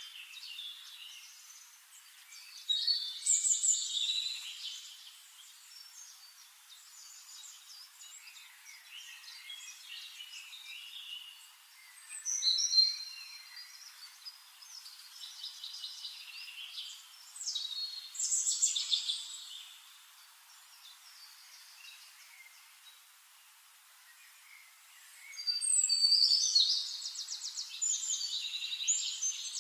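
Songbirds singing in separate bouts of chirps and quick trills over a faint hiss, with the loudest phrases about three, twelve and eighteen seconds in and a longer, rapid trilling from about twenty-five seconds in.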